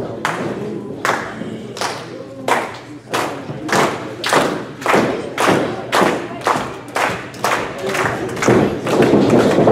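Audience clapping in unison in a reverberant hall: a steady beat of sharp claps, about two a second.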